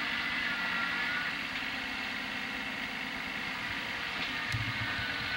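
Small tractor's engine running steadily, heard from a distance, with a faint high whine over it. A soft thump about four and a half seconds in.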